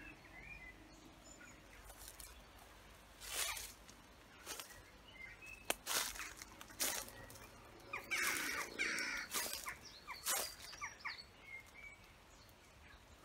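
Leaves and branches rustling and brushing in short irregular bursts as someone pushes on foot through overgrown bushes, busiest about two-thirds of the way through. Faint bird chirps sound in the background.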